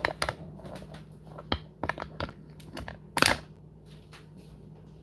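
Kitchen clatter: a utensil knocking and scraping against a Hexclad frying pan as it is handled at the stove, several sharp knocks with the loudest about three seconds in, over a steady low hum.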